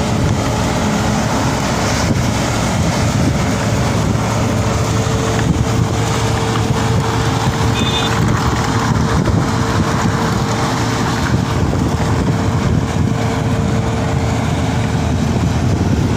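Sweeping machine running steadily: a loud, continuous engine drone with a held mid-pitched whine over it, and a short high beep about halfway through.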